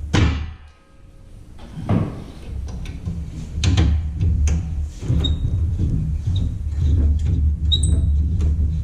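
Metal roof rack parts being handled: a run of knocks, clacks and scrapes as rails and brackets are moved and set in place, with a few short high squeaks in the second half over a steady low hum.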